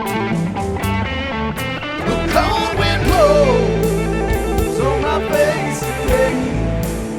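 Rock music instrumental break: a guitar lead with bending, sliding notes from about two seconds in, over sustained chords and a steady drum beat.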